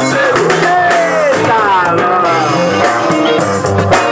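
Live rock band playing through a PA: drum kit keeping a steady beat under electric guitar, with a melodic line that bends and glides in pitch.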